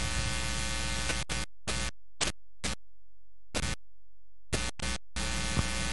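Background electronic music: a held synth chord that breaks up about a second in into short chopped snatches with dead silence between them, then runs steady again near the end.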